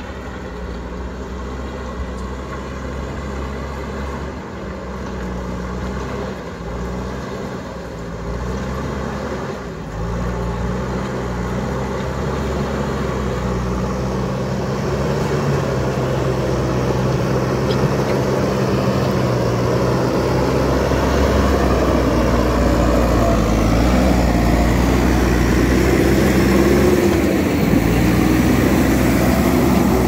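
JCB backhoe loader's diesel engine working hard as its front bucket pushes soil and rock along a dirt road, steadily growing louder as the machine draws close.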